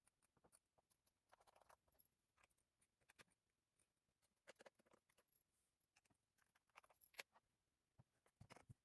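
Faint, irregular clicks and taps of handling, some in short clusters, with a slightly stronger click about seven seconds in.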